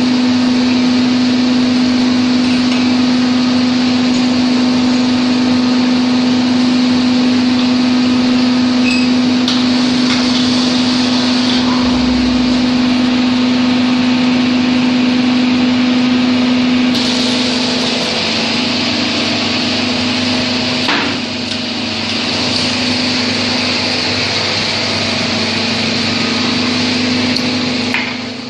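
HFU-3A hydraulic underground core drilling rig running with a steady, loud hum. About two-thirds of the way through the hum dips slightly and a hiss rises. There is a low thud near the middle and a few sharp knocks near the end.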